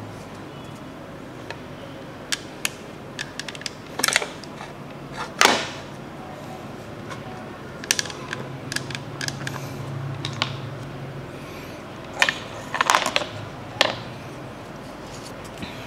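Hard plastic Play-Doh playset pieces clicking and knocking together as they are handled: scattered sharp clicks and taps, the loudest about five seconds in and a quick run of them near the end, over a steady low hum.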